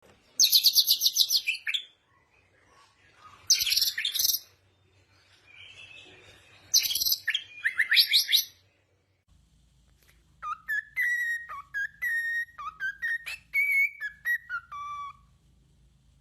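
Small birds chirping in fast, high trills, in three bursts over the first nine seconds. About halfway through, after a change in the background, a run of clear, separate whistled notes begins, some sliding down in pitch.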